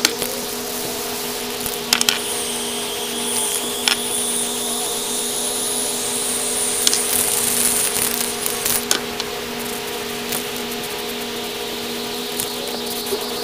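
Aerosol spray-paint cans hissing in spurts over a steady mechanical hum, with a few sharp clicks and knocks as cans and stencil objects are handled.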